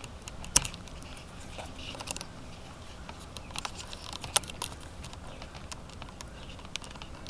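Scattered small clicks and rattles of the airbag's plastic wiring connectors being slid off their sockets by hand, with a sharper click about half a second in and another around four and a half seconds.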